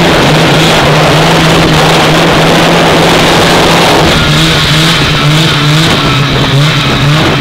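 A vintage two-stroke snowmobile engine running loud and steady under way, with the rush of the machine over the snow. About four seconds in, the rougher low rumble eases while the engine tone holds.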